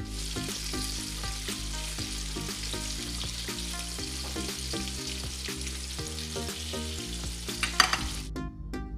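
Battered chicken pieces deep-frying in hot oil: a steady sizzle, with a sharp crackling burst near the end just before it cuts off suddenly.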